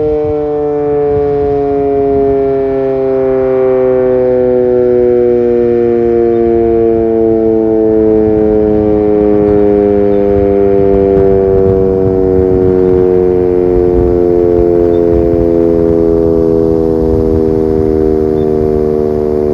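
Sentry 7V8 eight-port omnidirectional civil-defense siren sounding several tones at once, its pitch falling slowly and steadily as it winds down at the end of a full-alert test.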